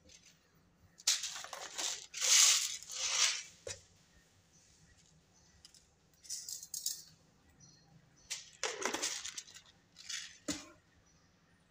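Kitchen items being handled by hand: irregular bursts of rustling and rattling, loudest about two to three seconds in, with a sharp knock near the end.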